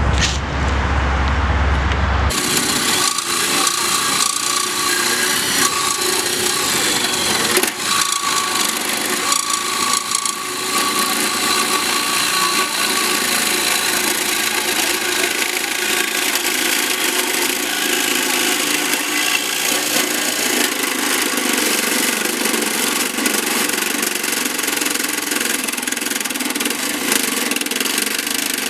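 A saw cutting through the rusted old exhaust pipe of a 1992 Toyota 4Runner: a steady grating of blade on metal that starts about two seconds in.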